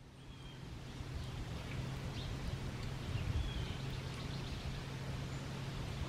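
Outdoor ambience: a steady low hum under a faint noise bed, with a few faint, short bird chirps scattered through.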